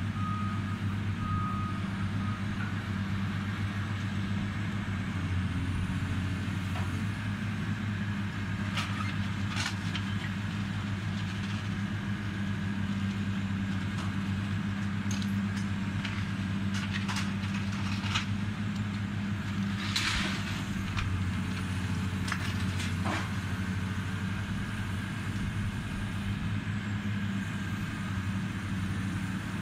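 Diesel engine of heavy demolition equipment, most likely the excavator, running steadily, with scattered sharp knocks and cracks of debris being broken. A few short beeps sound in the first couple of seconds.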